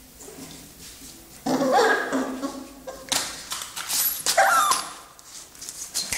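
A Mastiff whining: two pitched whines that bend up and down, one about a second and a half in and a shorter one near the end, with scuffling noise between them.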